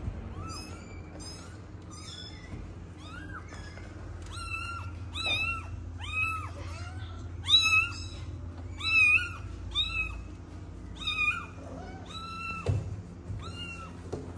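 Kitten mewing over and over: short, high-pitched meows about one or two a second, loudest in the middle stretch. A soft thud comes near the end.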